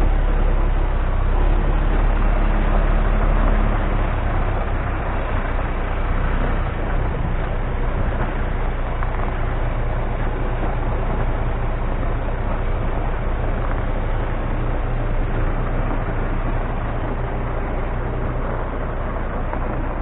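MAN TGX 33.560 logging truck's straight-six diesel engine running steadily with a deep hum, loudest over the first four seconds and then slightly quieter.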